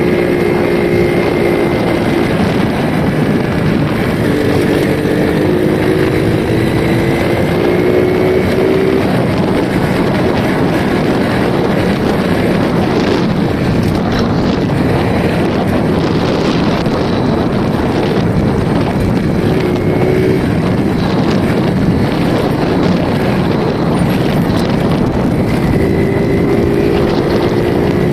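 Small Yamaha underbone motorcycle riding along, heavy wind noise on the microphone over the steady engine. The engine note rises and falls a few times as the throttle changes.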